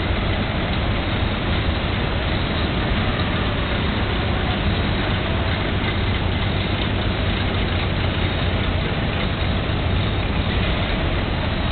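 Engines of a slow-moving line of vintage cars running at low speed, a steady mechanical rumble with a low hum and no distinct events.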